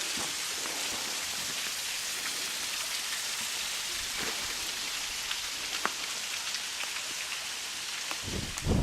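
Steady hiss of falling water, with a few faint ticks. Near the end a loud, uneven rumble of wind on the microphone cuts in.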